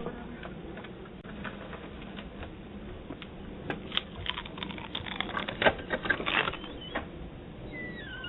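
Irregular clicking and tapping picked up by a doorbell camera's microphone, sounding thin and cut off at the top, over a steady low hum. A cat starts meowing near the end with a falling call.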